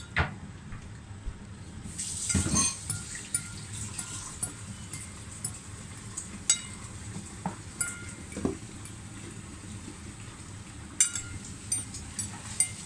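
Fork and spoon clinking and scraping against a bowl of noodle soup as someone eats, in scattered light clinks over a steady background noise.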